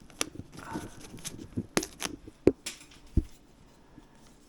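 Plastic zip ties being cut off a bundle of scooter wires and brake lines: a string of sharp clicks and snaps at uneven intervals, with a brief rustle of the wires being handled.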